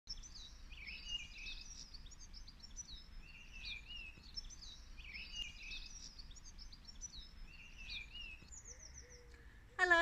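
Songbirds singing: high, varied chirping phrases repeated over and over. A woman starts speaking right at the end.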